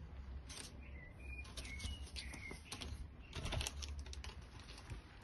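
Light, irregular clicks and taps of small RC car chassis parts being handled and fitted during the steering bridge install, with a denser run of clicks about three and a half seconds in. Several short, falling bird chirps sound in the background.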